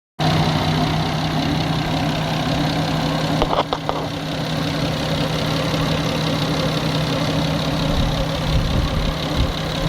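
Nissan RB25DET Neo turbocharged straight-six idling steadily with a ticking noise, which the owner suspects is tappets or an exhaust manifold leak. A short cluster of sharper clicks comes about three and a half seconds in.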